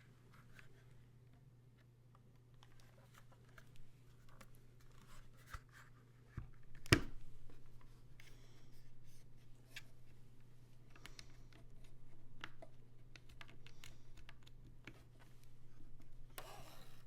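Typing on a Blueberry custom mechanical keyboard with Huano Caramel Latte switches (factory-lubed, the owner thinks), a PC plate and GMK keycaps: irregular runs of keystrokes, sparse at first and then faster, with one much louder hit about seven seconds in. A steady low hum lies underneath.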